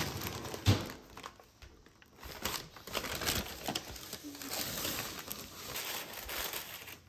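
Paper rustling and crinkling as a hand rummages in a brown paper takeout bag, then as a paper fry bag is tipped to shake crinkle-cut fries onto a plate. A single sharp knock comes a little under a second in.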